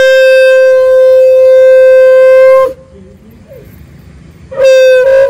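Conch shell (shankha) blown in temple worship: one long steady blast held about three seconds, then after a short pause a second, shorter blast whose pitch sags as the breath runs out.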